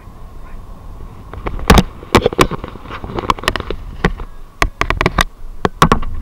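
Low rumble of a moving vehicle with a run of sharp, irregular knocks and rattles starting about a second in, as from the ride jolting over a rough road.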